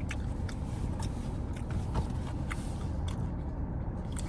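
Steady low rumble with scattered light clicks and rustles, as fast-food packaging is handled.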